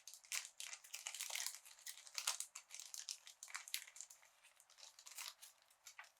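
Typing on a COX CK87 tenkeyless mechanical keyboard with Gateron Brown tactile switches: a quick, irregular run of key clacks that thins out over the last couple of seconds and stops at the end.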